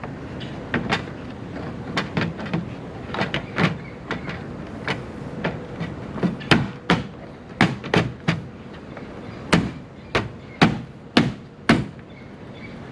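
Irregular sharp clicks and knocks of hard plastic parts being handled and pressed into place as a car tail lamp assembly is fitted back into the body.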